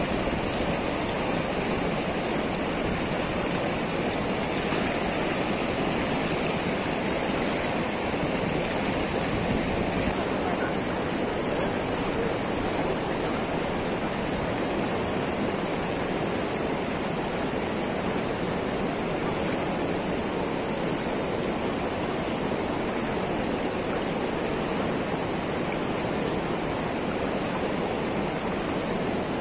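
River water rushing steadily over a concrete weir and churning into white water below it, an even, unbroken rush.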